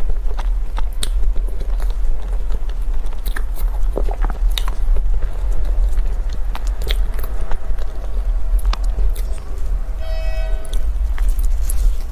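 Close-up eating sounds: a person chewing and biting food, with irregular sharp crunches and mouth clicks over a steady low hum. About ten seconds in, a brief pitched hum-like sound is heard, likely from the eater.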